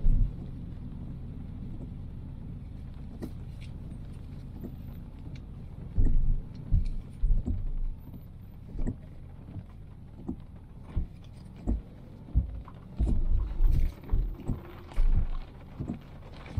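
A car driving in heavy rain: a steady low rumble of road and engine noise under a faint rain hiss. From about six seconds in, irregular short, heavy thumps come every half second to second and a half.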